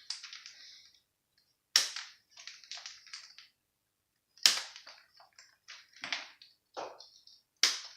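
Hard plastic parts of a pressure washer being handled and snapped together: three sharp snaps, each followed by brief rattling and handling noise.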